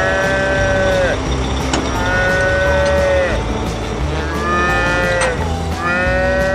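Cartoon soundtrack music: a reedy held note that droops at its end repeats every one and a half to two seconds over a low, stepping bass line.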